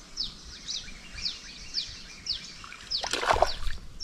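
A bird calls over and over with short falling chirps, about two a second. About three seconds in comes a loud splash: a fish striking at the lure on the water's surface.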